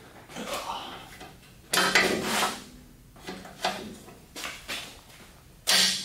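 Long breaker bar and socket straining on a seized exhaust bolt: a series of about five metallic clanks and scrapes, each starting abruptly, with the loudest about two seconds in and near the end.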